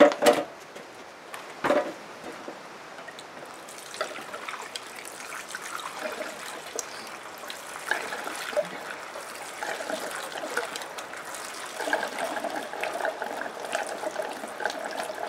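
Gasoline pouring from a can through a funnel into the fuel tank of a Predator 420cc engine, a steady trickle that begins about four seconds in and grows fuller as the tank fills. There are two sharp knocks in the first two seconds as the funnel and can are set in place.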